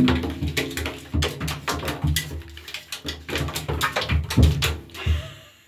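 A foil ball skittering and clattering around an empty bathtub while a cat chases and bats it, paws thudding and scrabbling on the tub. A rapid, uneven run of clicks and thumps, heaviest at the start and again a little past the middle.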